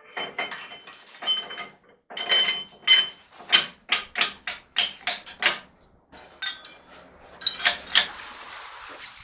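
Hammer blows on metal: a long, irregular series of sharp ringing strikes, coming fastest in the middle at about three a second. A steady hiss follows near the end.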